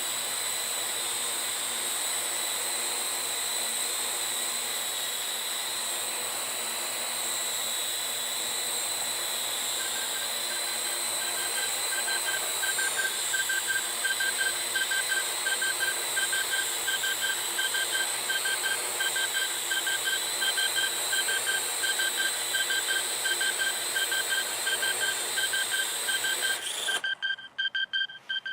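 Parrot AR.Drone 2.0 quadcopter's four electric rotors whirring steadily with a high whine. About a third of the way in, a rapid, evenly repeated beep starts. Near the end the rotors cut off suddenly while the beeping goes on.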